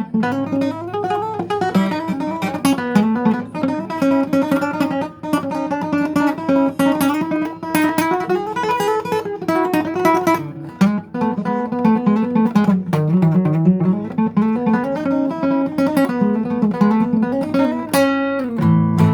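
Guitar playing fast picked melodic runs, the song's instrumental riff. It ends on a held, ringing chord near the end.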